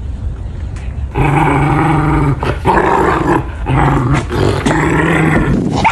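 Dog growling in four long stretches separated by short breaks, starting about a second in.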